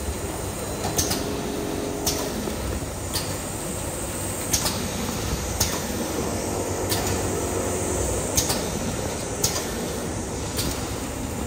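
Automatic maxi-roll kitchen towel shrink-wrapping line running steadily, with a short sharp sound about once a second as the machine cycles.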